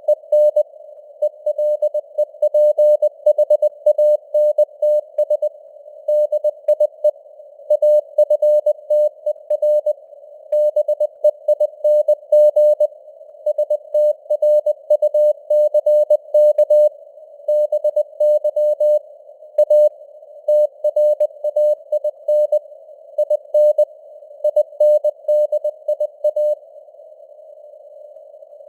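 Morse code sent at 20 words per minute: a tone of about 600 Hz keyed on and off in dots and dashes, over a narrow band of simulated radio receiver hiss. Near the end the keying stops for about two seconds, leaving only the hiss.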